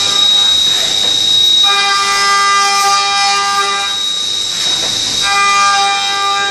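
Leadwell V-50L CNC vertical machining centre running, with a steady high-pitched whine. Twice a steady pitched tone with many overtones comes in: first for about two seconds, then again for about a second near the end.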